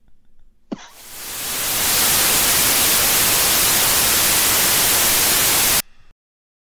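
Loud radio-static hiss that fades in over about a second, holds steady for about four seconds, then cuts off suddenly.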